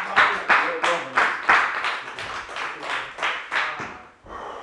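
Steady, rhythmic hand-clapping, about three sharp claps a second, stopping about four seconds in.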